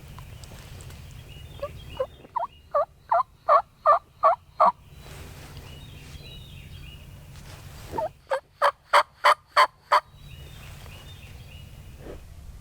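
Turkey call worked by a hunter to sound like hen yelps: two runs of about eight sharp yelps each, roughly three a second, growing louder through each run, meant to draw gobblers in.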